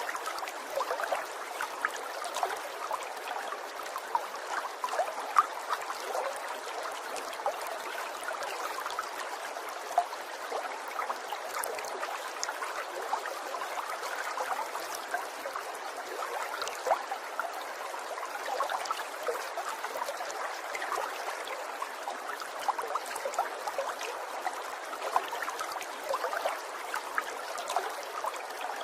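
Water trickling and burbling steadily, thick with small splashes and drips.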